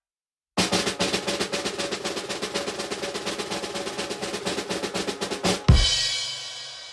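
Snare drum roll: fast, even strokes for about five seconds, ending in one loud final hit whose ringing slowly fades away.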